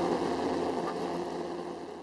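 Light aircraft's engine and propeller droning steadily, heard inside the cabin, fading out gradually.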